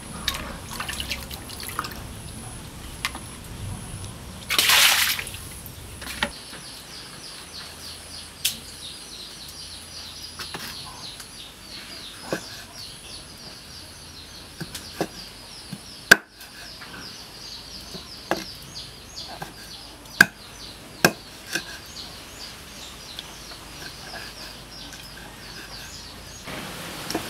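Hands sloshing pieces of salted fish in a basin of water, with a louder splash about five seconds in. Then a cleaver chopping the salted fish on a thick wooden chopping board: single knocks every second or two, the loudest about sixteen seconds in.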